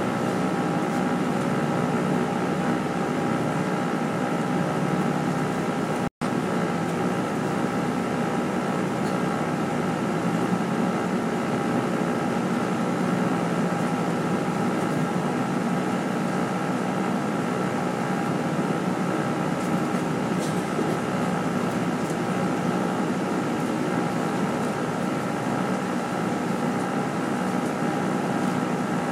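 London double-decker bus running, heard from on board: a steady engine drone with several held tones over road noise. The sound drops out for an instant about six seconds in.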